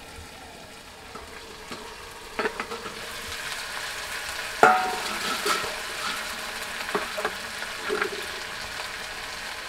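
Marinated chicken leg pieces sizzling in oil and ghee in a metal kadai, the frying growing louder as the pan is uncovered. About halfway through comes a sharp ringing clank from the steel lid, with a few lighter knocks of the spatula against the pan.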